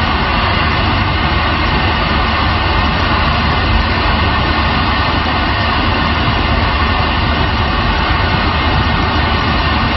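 Steady static hiss from a CRT SS6900N CB radio's speaker in AM mode, with a low hum underneath: an open channel with no one transmitting.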